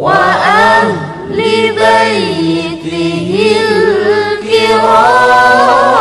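Arabic devotional salawat (sholawat) sung in long, ornamented notes that glide and waver in pitch. A new phrase begins right at the start.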